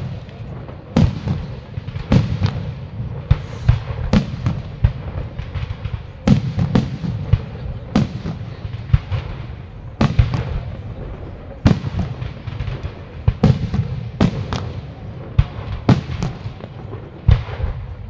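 Aerial fireworks display: shells bursting in a rapid, uneven string of sharp bangs, about one or two a second, over a steady low rumble.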